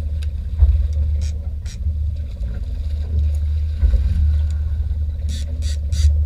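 A fishing boat's engine running with a steady low drone. Near the end, a run of short high-pitched squawks comes at about three a second.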